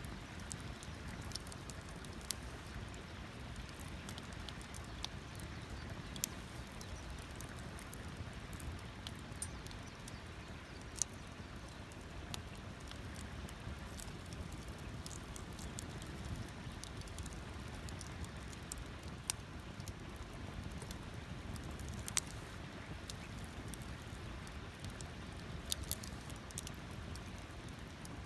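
Wood campfire crackling, with sharp pops at irregular intervals over a steady low noise.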